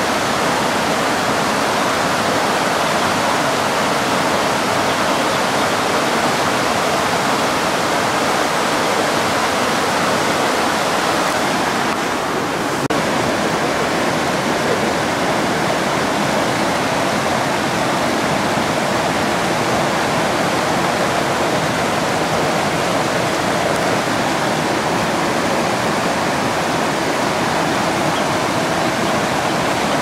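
Waterfall: a steady, even rush of falling water, with a brief slight dip about twelve seconds in.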